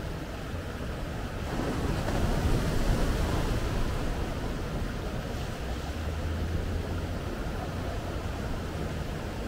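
Small ocean waves breaking and washing up a sandy beach against rocks. One wave swells about a second and a half in, is loudest around three seconds, then its wash slowly recedes.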